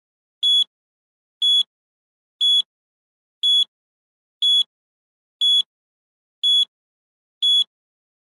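Electronic countdown-timer beep: a short, high, steady tone sounding once every second, eight times, with silence between, marking each second as the countdown runs.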